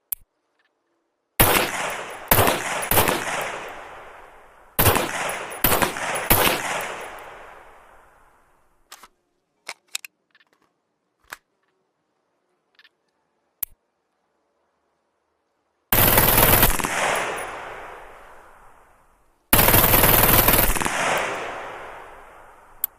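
MAC-10 submachine gun firing on full auto: two clusters of three short bursts, then two longer bursts of about a second each, every one trailing off in a long echo. A few faint clicks fall in the pauses.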